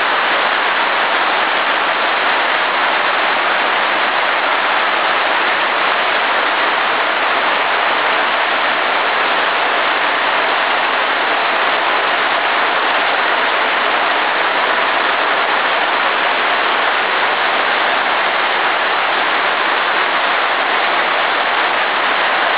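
Heavy tropical downpour: rain falling steadily in an even, unbroken rush.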